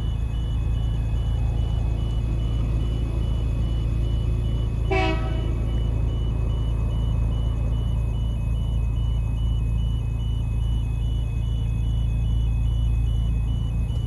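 Railway level crossing warning bell dinging rapidly and steadily over a low steady rumble, with one short horn toot from the approaching train about five seconds in.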